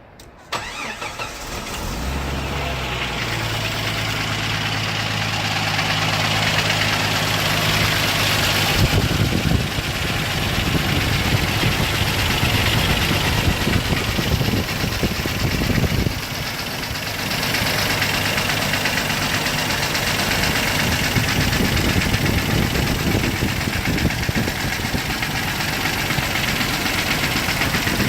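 1998 Jeep TJ Wrangler's 4.7L stroker inline-six starting about half a second in, then running with a rattle. The owner suspects a bad wrist pin or piston slap, or something worse.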